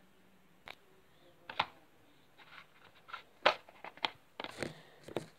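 Plastic toy figure and playset being handled on a wooden surface: a handful of light taps and clicks, the sharpest about three and a half seconds in.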